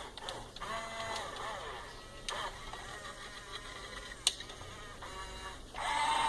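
Electric motors of a Huina 1550 toy RC excavator whining in short runs as it moves, each run rising in pitch as it starts and falling away as it stops, with a sharp click about four seconds in.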